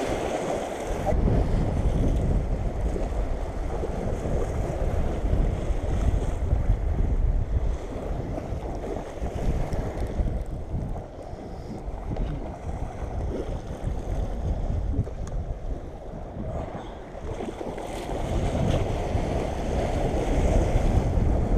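Gusty wind buffeting the microphone, a low rumble that swells and eases, over waves splashing against a concrete seawall.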